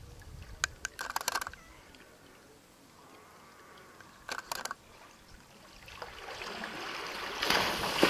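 African elephant moving through water: soft sloshing and trickling, with two brief clusters of sharp clicks, then the water noise builds into a loud splash near the end.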